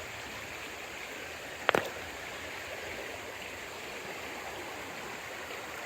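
Creek water flowing steadily over and around a stone fish dam, a constant rushing hiss, the stream running high after heavy rain. A single sharp click cuts through it about two seconds in.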